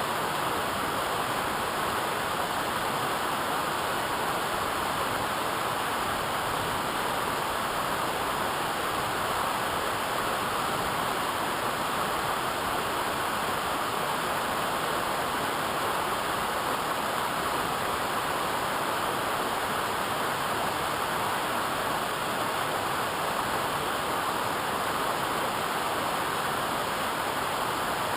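Waterfall, water rushing steadily.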